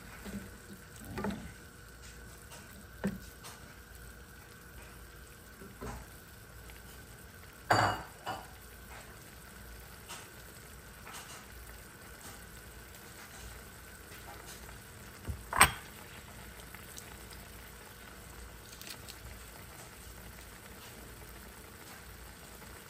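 Pork and pork liver sizzling in a soy sauce and vinegar sauce in a skillet, stirred with a wooden spatula at first. A few sharp knocks break the steady sizzle, the loudest about two-thirds of the way through.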